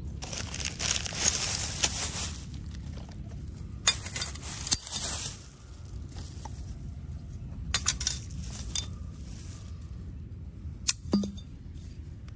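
Metal litter-picking tongs clicking and clacking as they grab litter, with rustling and crinkling of styrofoam and plastic bags. A handful of sharp clicks are spread through, the loudest about four and eleven seconds in, over a low steady rumble.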